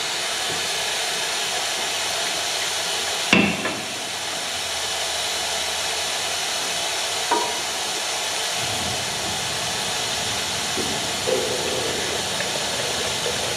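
Transmission oil pouring out of the drain hole of a Cat D7G dozer into a vacuum drain canister, a steady rushing hiss. A sharp knock comes about three seconds in, and a lighter one about seven seconds in.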